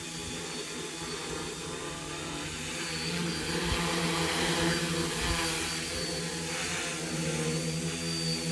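Homemade DJI F450 quadcopter's brushless motors and propellers whirring steadily in a low hover, growing slightly louder around the middle.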